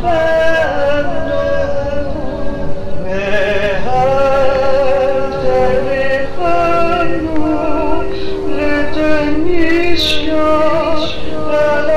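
A female cantor singing a slow prayer melody with wavering, ornamented pitch, over steady held accompaniment notes.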